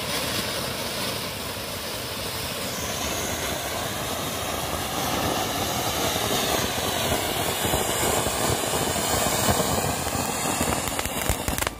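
Ground firework fountain (a 'crackling burst' type) spraying sparks with a steady rushing hiss and dense crackling, slowly getting louder, then stopping abruptly near the end.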